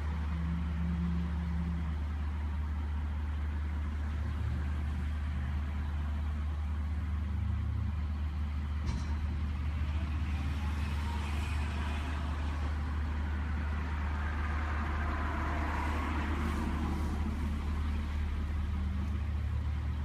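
Steady low motor hum over constant background noise, with a brief swell of louder noise about three-quarters of the way through.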